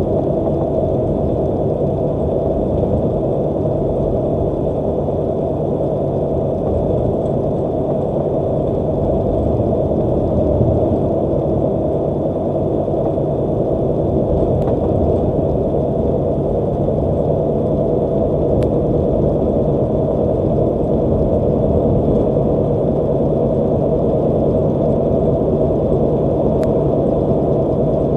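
Steady engine and road noise inside a truck cab cruising at highway speed, with three faint ticks.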